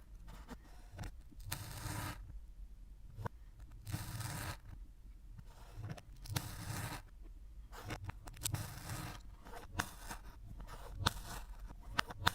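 Kinetic sand being squished and worked by hand: a run of short scraping bursts every second or two, with sharp clicks between them.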